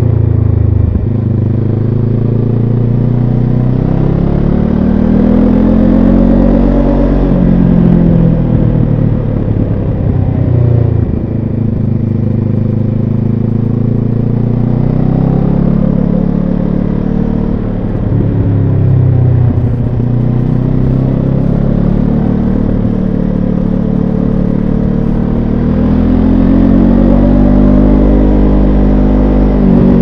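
Benelli TRK 702 X's parallel-twin engine heard onboard while riding through curves. The revs climb and drop three times as the throttle is opened and rolled off.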